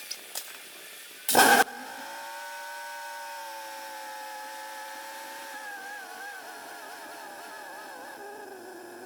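2009 Dodge Ram 1500's 4.7 V8 cranking briefly, catching, then idling steadily. The idle settles a little just after it starts.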